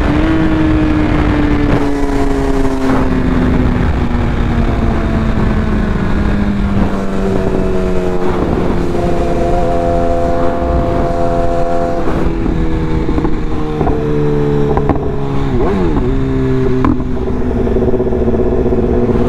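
BMW S1000RR inline-four engine running at highway speed with wind rushing over the bike. The engine note falls slowly over the first several seconds as the bike eases off, then holds roughly steady with a few brief dips and rises.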